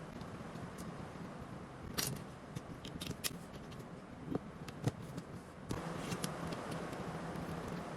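Small sharp clicks and taps of Lego bricks being handled and pressed together, a few separate clicks spread over several seconds, over a steady background hum that grows louder again about two-thirds of the way through.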